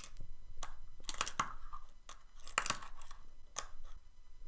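Fingerboard clacking on a tabletop: an irregular series of short, sharp taps and clicks, with brief scrapes, as fingers flick and push the little deck.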